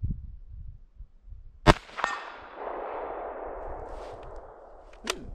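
A single shot from a Finnish m/39 Mosin-Nagant rifle in 7.62×54R, followed by a short ring of the bullet striking a steel target and a long rolling echo that fades over about three seconds. Near the end come two sharp metallic clicks as the bolt is worked.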